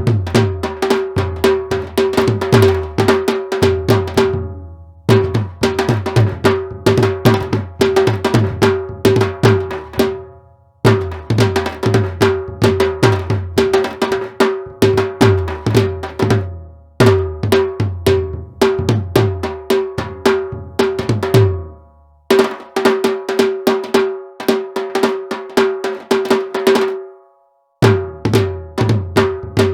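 Sampled Indian hand-drum patterns from Native Instruments' Discovery Series India library, tabla-like: a high drum ringing at one steady pitch over bass strokes that bend downward in pitch. The patterns come in phrases of about five seconds with short breaks between them.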